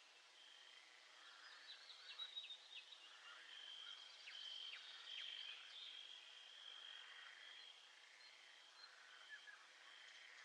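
Faint nature soundscape: a steady, high insect trill that comes and goes in long pulses, with many short chirping calls over it, busiest in the first half and again near the end.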